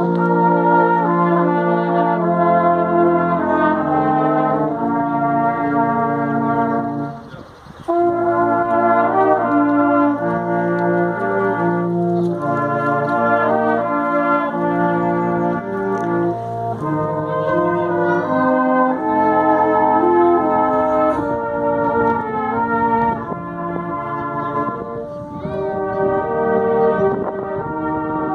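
Silver band (brass band) playing a tune together: low brass carrying the bass line under horns and cornets in held chords, with a brief break about seven seconds in.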